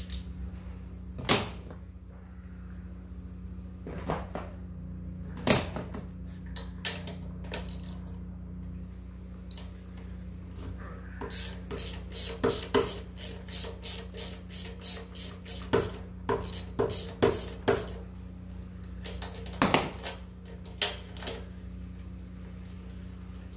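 Metal hand-tool clicks and knocks, with a run of quick clicks about three a second for several seconds in the middle: a socket wrench ratcheting as the spark plug is worked out of a lawnmower engine. A steady low hum lies underneath.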